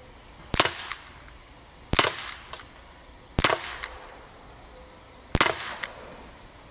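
Daisy Powerline 5501 CO2 blowback BB pistol firing four shots, about one and a half to two seconds apart. Each shot is a sharp report followed about half a second later by a fainter tick.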